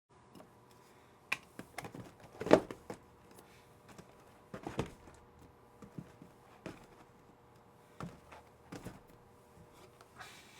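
Irregular light taps, clicks and knocks of things being handled on a desk, the loudest knock about two and a half seconds in, over a faint steady hum.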